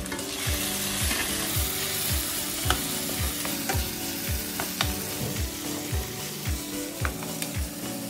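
Chopped onion and garlic sizzling in hot oil in a nonstick wok, with a spatula stirring and scraping and a few sharp taps against the pan. Background music with a steady beat runs underneath.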